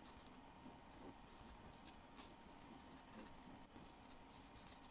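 Near silence with faint light scratching and a few soft ticks of small watchmaker's tools working on watch hands.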